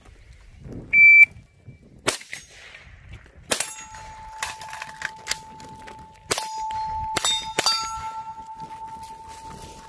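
A shot timer beeps once, then a rifle fires about seven rounds of steel-cased 300 Blackout over about six seconds. Steel targets ring on the hits, and the ring hangs on after the last shot.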